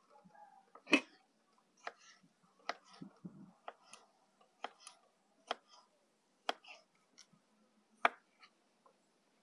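A series of sharp, short knocks, about one a second and slightly uneven, with the first and the last the loudest.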